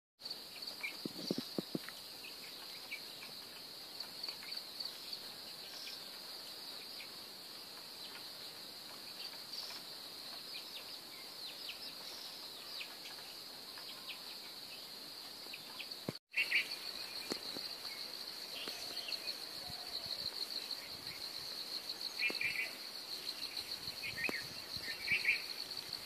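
Steady high-pitched insect chorus with a few short bird chirps. The sound drops out for a moment about two-thirds of the way through, then resumes with the insects trilling in a more evenly pulsing way.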